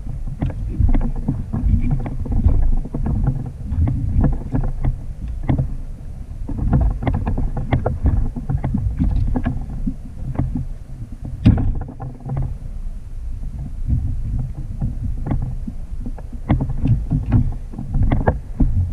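Water slapping and knocking against a fishing kayak's hull with a steady low wind rumble on the microphone, broken by frequent short knocks and taps, a sharper one about eleven seconds in.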